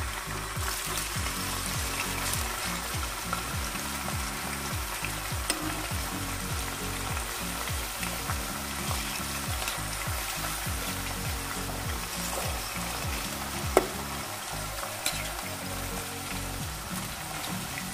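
Marinated boneless chicken pieces shallow-frying in coconut oil in a nonstick pan: a steady sizzle, with one sharp click about three-quarters of the way through.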